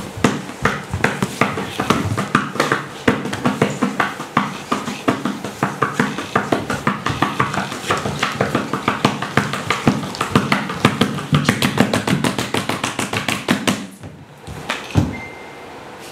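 Body percussion made by dancers: quick slaps, claps and taps that speed up into a dense patter, then stop suddenly about 14 seconds in, followed by a single low thump.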